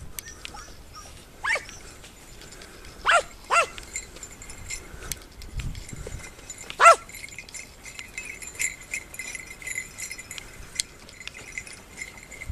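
Hunting hound barking: four short barks, each falling in pitch, the loudest about seven seconds in.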